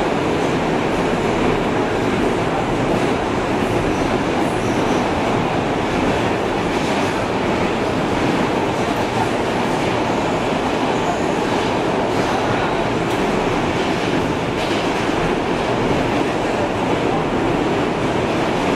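New York City subway car running at speed, heard from inside the car: a steady, loud rumble of wheels on the rails with a few faint clicks.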